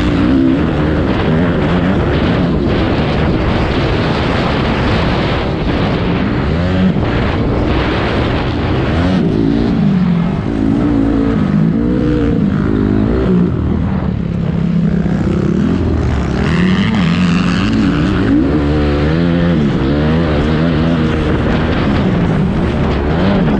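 Racing engines revving up and down again and again, their pitch rising and falling as they accelerate and slow, with more than one engine heard at once at times.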